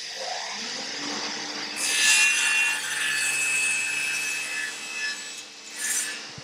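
Table saw with a thin-kerf 36-tooth carbide blade crosscutting a hardwood board. The saw hums steadily throughout. The blade's cutting noise grows louder from about two seconds in to about five seconds, and a brief louder burst near the end marks the blade leaving the wood.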